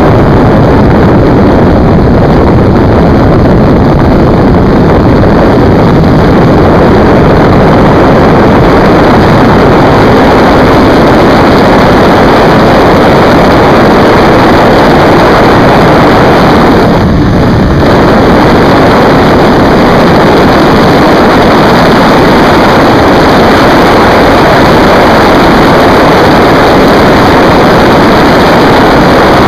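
Loud, steady wind roar over the microphone of a sport motorcycle at high speed, a Yamaha YZF1000R Thunderace, with its inline-four engine running beneath. The rush eases briefly about 17 seconds in, then carries on.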